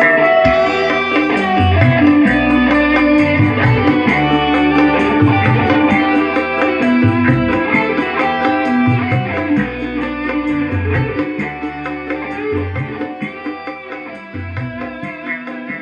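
Music with drums and plucked strings played through a modified SOCL 506 speaker driver in a custom box, driven by an amplifier for a sound test. It gets quieter over the last few seconds.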